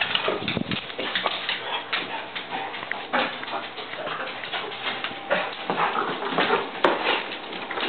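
Yellow Labrador retriever whimpering excitedly, with a busy run of short scuffs and knocks throughout.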